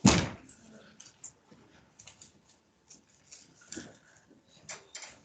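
A sharp knock at the start, then faint scattered clicks and rustling, with a few louder clicks near the end.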